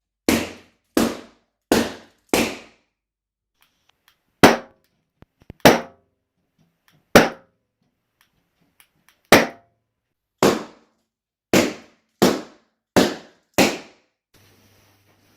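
Balloons bursting one after another as a handheld laser pops them: about thirteen sharp pops, some coming in quick runs less than a second apart, others after pauses of a second or two.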